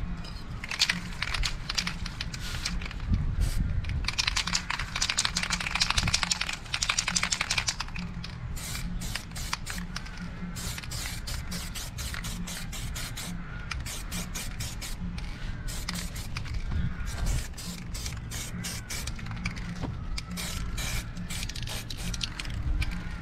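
Aerosol spray-paint can hissing in bursts onto a brake caliper, the longest burst about four to seven seconds in, with shorter ones later. Background music with a steady bass runs underneath.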